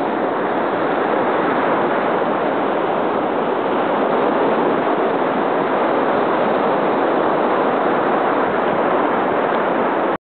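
Steady rushing wash of ocean surf on the beach, loud and even throughout.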